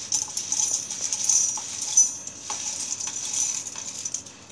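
Dry-roasted, crisp green cardamom pods pouring from a plate into a steel mixer-grinder jar: a continuous light rattle of pods hitting metal and each other, with scattered clicks and one sharper click about two seconds in, tailing off near the end.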